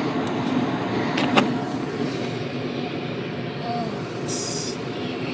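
Two 2001 York gas furnaces running with their burners lit, giving a steady blower rush. A sharp click comes about a second and a half in, and a brief high hiss near the end.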